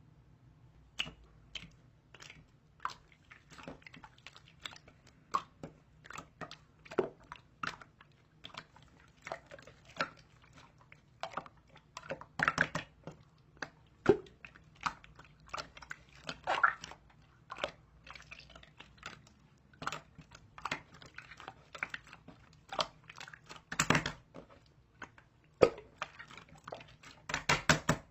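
Close-up chewing and crunching: irregular crisp clicks and crackles, with denser clusters and a few louder bites scattered through.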